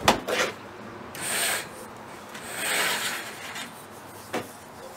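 Metal antenna tubing scraping as it is slid up and out of its base sleeve, in two long rasps, with a sharp knock at the start and another about four seconds in.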